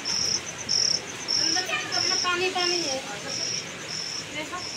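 Cricket chirping in evenly repeated high-pitched pulses, about three every two seconds. A faint voice is heard in the background around the middle.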